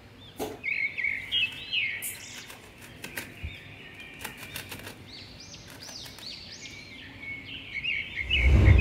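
Small birds chirping in quick, repeated arching calls, with a few light clicks as a plastic pond basin is handled. Near the end there is a loud low thump.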